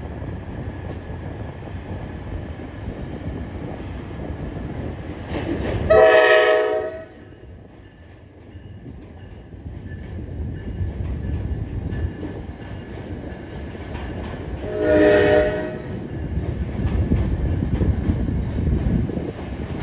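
NJ Transit passenger train crossing a steel railroad drawbridge. Its horn sounds twice, about a second each, around six and fifteen seconds in, over the low running noise of the train rolling across the bridge, which grows louder near the end.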